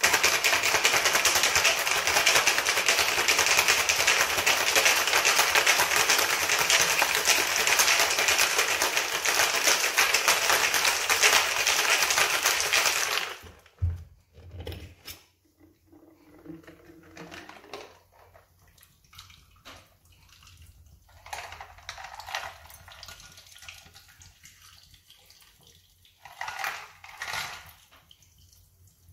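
Metal cocktail shaker shaken hard for about thirteen seconds, ice rattling inside, then stopping abruptly with a couple of knocks as it is set down and opened. Later, quieter sounds of the drink being poured from the shaker into a glass of ice.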